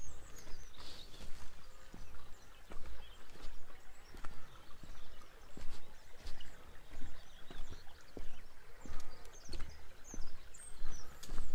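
Steady footsteps of a person walking, with wind buffeting the microphone and a few faint bird chirps.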